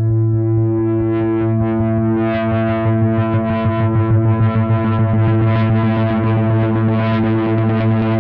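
Synthesizer riser sound effect: a sustained low synth tone that swells in and holds one pitch, growing steadily brighter as its upper harmonics build over several seconds. It flutters briefly in loudness around the middle.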